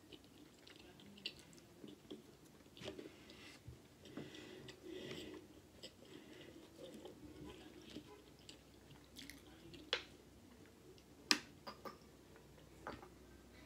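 Faint close-up chewing and mouth sounds of someone eating garlic bread, with scattered small clicks. Near the end comes a sharper click and a drink from a plastic water bottle.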